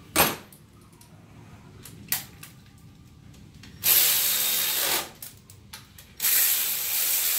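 Cordless power ratchet running in two bursts, the first about a second long and the second about a second and a half, driving nuts down on the intake manifold. Two sharp clicks come before them.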